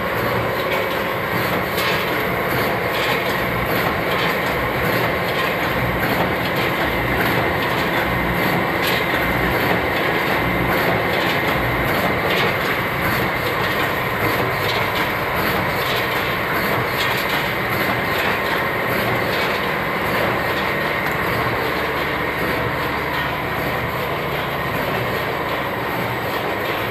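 Vertical form fill seal packing machines with multihead weighers running, bagging potato chips: a steady mechanical noise with a faint high whine and many light clicks and clatters.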